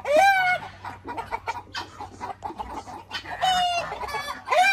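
A flock of agitated poultry calling in alarm: three loud, short calls, each rising then held, the first at the start and two close together near the end, over softer scattered clucking.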